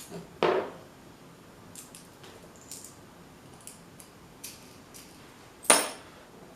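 Small hard parts and tools being handled on a workbench: a knock about half a second in, a few faint ticks and clicks, and one sharp clack near the end.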